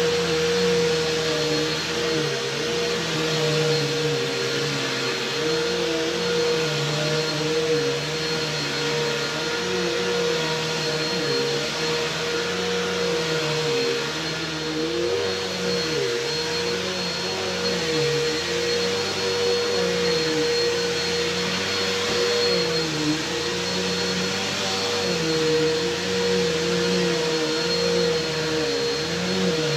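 Bissell PowerForce bagged upright vacuum cleaner running continuously: a steady motor whine over a rush of air, with a lower hum that wavers up and down every second or two.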